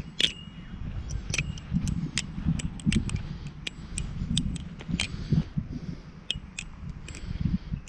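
Balisong trainer handles and latch clicking and clacking as the butterfly knife is flipped, in irregular sharp clicks about two a second, over a low rumble.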